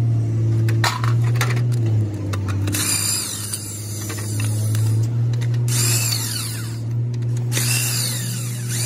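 Electric impact wrench run in three short bursts of about a second each, undoing bolts inside a truck gearbox's bell housing, its motor whine falling away after each burst. A loud, steady low hum runs underneath.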